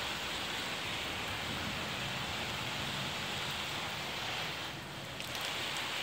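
Water spraying steadily from the shower head of an Eccotemp L5 portable propane tankless water heater and splashing down, briefly a little softer about five seconds in.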